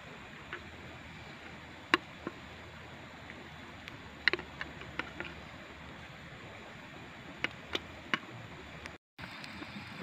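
Steady outdoor background hiss with scattered sharp ticks and taps, about ten of them, the loudest about two seconds in and just past four seconds. It cuts out to silence for a moment just before the end.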